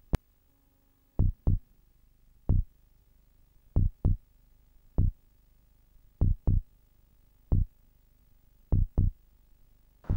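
Deep, low thumps in a slow, even beat, about one every second and a quarter, alternating a quick double thump with a single one. A faint click sounds right at the start.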